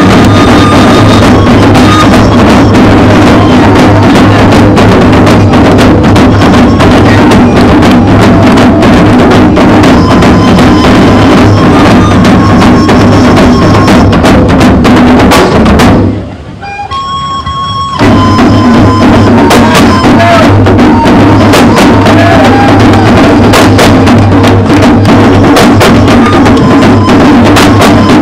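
Large ensemble of tifa, Malukan hand drums, beaten with the palms in a loud, fast, dense rhythm. About 16 seconds in the drumming breaks off for about two seconds, then the whole group comes back in together.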